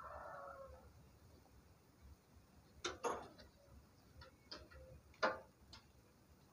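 The end of a rooster's crow, trailing off and falling in pitch within the first second, followed by a few sharp clicks and knocks, the loudest about five seconds in.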